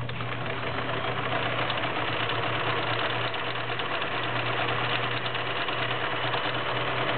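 Kenmore model 1625 all-metal sewing machine running steadily while sewing a multi-point zigzag stitch: an even motor hum under a fast, regular needle chatter.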